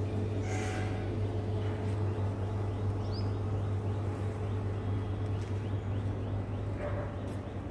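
A steady low machine-like hum with a faint higher tone over it, and one short high chirp about three seconds in.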